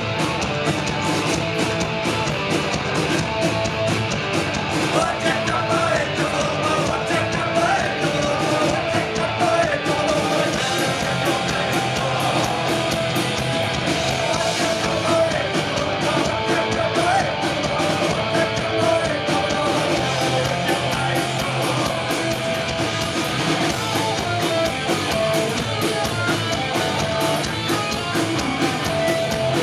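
Live thrash-metal band playing at full volume: distorted electric guitars, fast drums and shouted singing, with no break.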